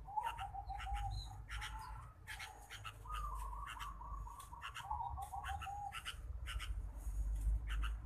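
Sooty-headed bulbul calling: a few quick runs of short repeated notes, over sharp ticking sounds that come in small groups.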